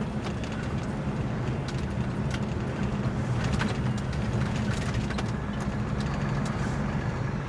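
Semi truck's diesel engine and road noise from inside the cab while driving: a steady low drone, with scattered light ticks and clicks over it.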